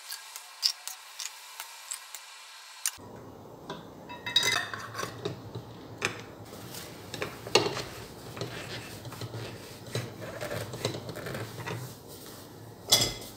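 Metal ladle scraping and clinking in a stainless steel pot and against a glass jar as thick hot zucchini caviar is ladled into the jar, with scattered clicks and taps as the jar's metal screw lid is closed; a louder knock near the end.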